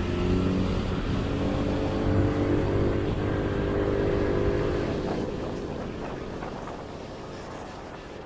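Motor vehicle engine running steadily over road noise, then fading away over the last few seconds.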